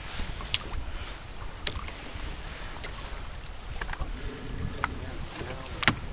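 Choppy lake water lapping against a small boat's hull, with a low rumble of wind on the microphone and scattered sharp ticks and knocks.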